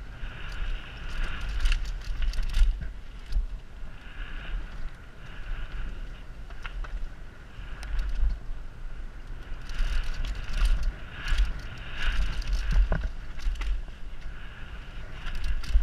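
Mountain bike riding fast down a dirt trail: tyre roar and hiss that swells and fades with speed, scattered rattles and clicks from the bike over bumps, and a constant low wind rumble on a helmet-mounted microphone.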